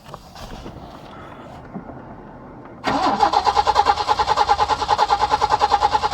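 Peugeot 505's PRV V6 being cranked by the starter motor, starting about halfway in with a rapid, even pulsing as the engine turns over without catching. It is a hard start after the car sat for about three months, which the owner puts down to the fuel injectors not working.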